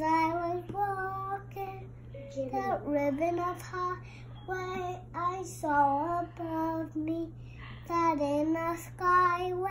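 A young girl singing solo and unaccompanied, in short phrases of held notes that slide up and down. A faint steady low hum runs underneath.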